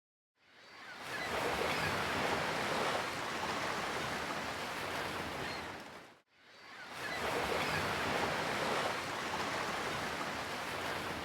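Steady rushing noise, like surf or wind, fades in, fades out to silence about six seconds in, then fades in again the same way.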